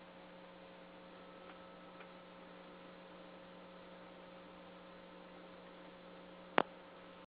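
Steady electrical mains hum with faint hiss, broken by two faint ticks about a second and a half and two seconds in and a sharp click near the end, after which the sound cuts off abruptly.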